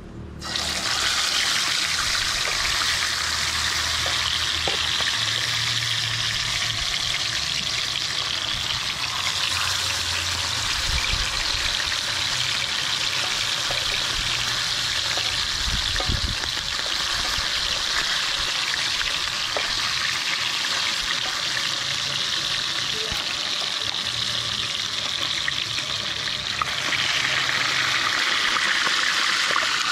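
Whole fish frying in hot oil in a frying pan: a steady, dense sizzle that starts suddenly about half a second in and grows a little stronger near the end.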